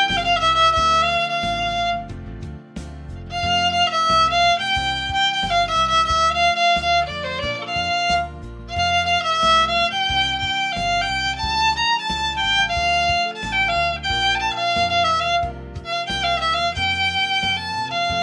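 Solo violin bowing a lyrical melody, note following note in long phrases, with short breaks between phrases about two and a half and eight and a half seconds in.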